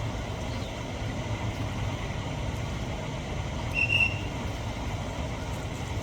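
Steady low outdoor rumble, with one short, high-pitched chirp about four seconds in.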